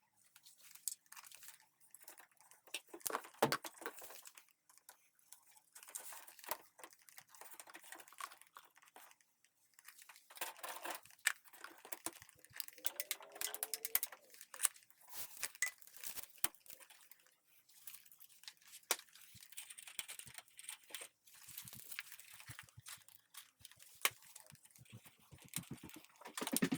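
Crinkling and tearing with scattered clicks and knocks of hands handling materials and tools during electrical work.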